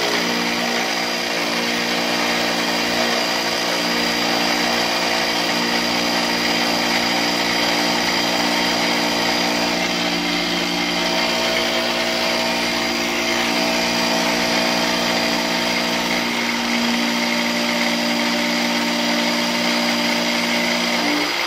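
Arboga milling machine, converted to CNC, running steadily as it mills a scrap piece of aluminium, with the spindle motor and axis drives humming. Some of its tones change partway through as the moves change, and the main hum stops just before the end.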